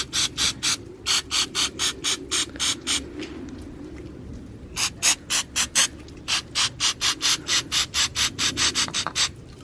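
Aerosol mass airflow sensor cleaner sprayed into the sensor in short quick squirts, about four a second. The squirts stop for a second or so about three seconds in, then start again.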